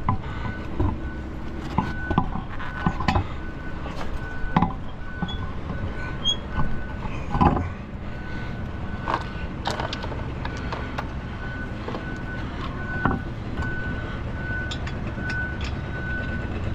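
Construction machinery running nearby: a steady engine rumble with a repeating high beep like a reversing alarm. Scattered sharp knocks and clanks sound over it.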